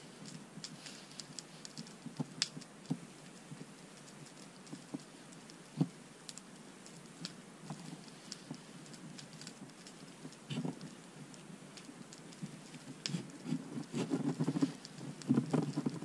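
Knife blade cutting into a thin living sapling: scattered small clicks and cracks of the wood, with some rustling that grows busier near the end.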